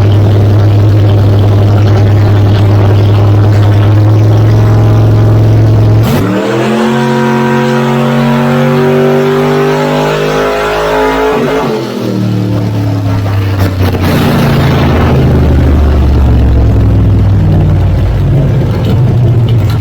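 Car engine running loudly at a steady speed, then revving up sharply about six seconds in, holding high revs for several seconds and dropping back near twelve seconds to a lower rumble.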